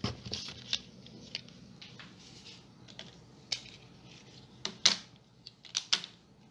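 Irregular light clicks and taps of small cardboard product boxes being handled and set down on a hard tabletop, about eight of them, the loudest near five seconds in.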